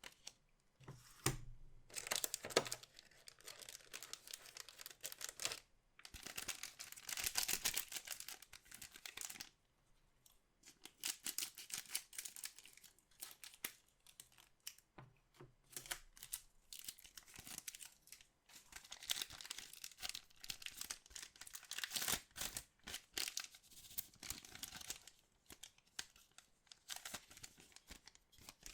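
Trading card pack wrappers being torn open and crinkled by hand, in stretches of a few seconds with small clicks and rustles between them.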